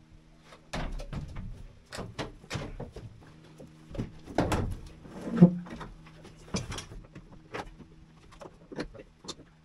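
Scattered knocks, clunks and scrapes of a small air-cooled generator set on its mounting frame being handled and shuffled into a fiberglass enclosure, busiest about four to five seconds in, over a steady low hum.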